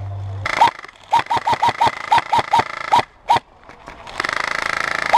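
Airsoft rifle firing: about a dozen quick single shots, each a sharp crack with a short ring. Near the end it switches to a rapid full-auto burst.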